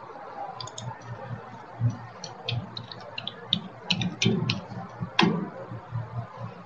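Scattered clicks of a computer mouse, with a louder click about five seconds in, over a faint low hum.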